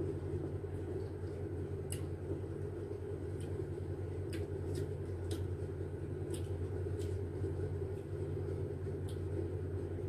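A steady low background hum, with about ten faint, sharp clicks and smacks scattered through it from peeling and eating citrus segments.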